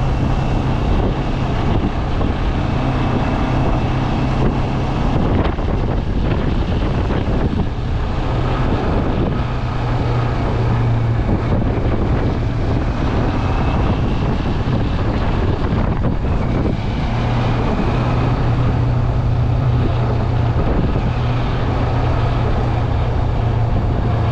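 Steady wind rush and road noise while riding along a highway, with a low hum underneath.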